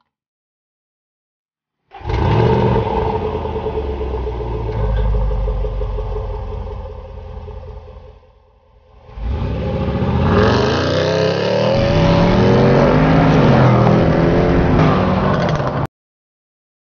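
Range Rover Sport SVR's supercharged V8 accelerating at full throttle from a launch, its revs climbing and dropping back at each upshift. It starts abruptly after about two seconds of silence, dips briefly midway, and cuts off suddenly near the end.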